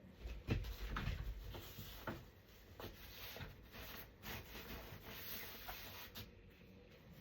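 Irregular knocks, clicks and rustling from parts of a Graco Pack 'n Play playard being handled and fitted during assembly.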